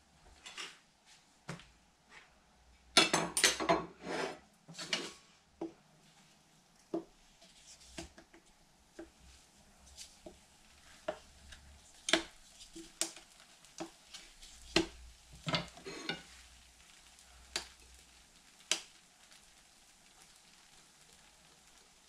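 Crockery and a spatula clattering and knocking: a loud burst of plate clatter a few seconds in, then scattered single taps and scrapes as pancakes are lifted off an electric pancake griddle and laid on a plate.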